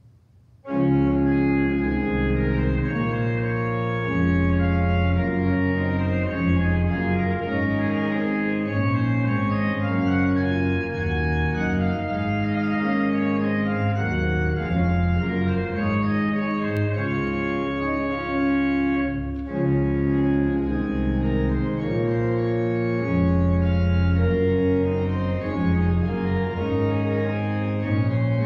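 Church organ playing sustained chords, entering about a second in, with a brief break about two-thirds of the way through before the chords resume.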